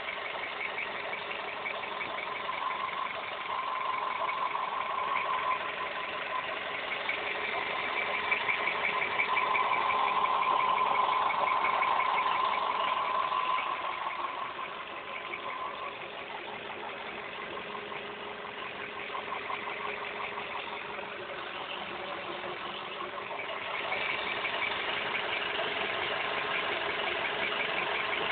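Volkswagen Polo Sedan petrol engine running fully warmed up, with a rapid rhythmic knock inside the engine at only 6000 km. It swells louder through the middle, eases off, then rises again near the end.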